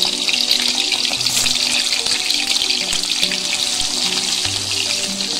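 Salted klotok fish deep-frying in hot oil in a wok: a steady, dense crackling sizzle, with background music underneath.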